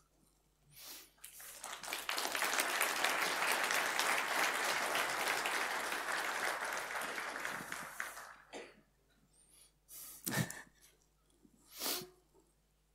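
Audience applause in a lecture hall. It builds about a second in, holds steady, and dies away after about eight seconds, followed by a couple of brief isolated noises near the end.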